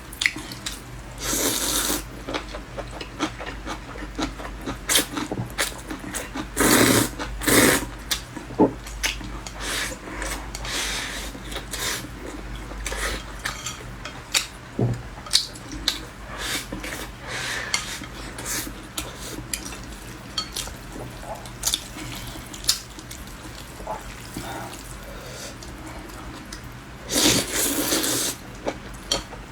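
Close-up eating sounds: wet chewing and slurping of glass noodles with rice, with frequent clicks of utensils against a bowl. A few longer slurps stand out, about a second in, around the middle of the first third, and near the end.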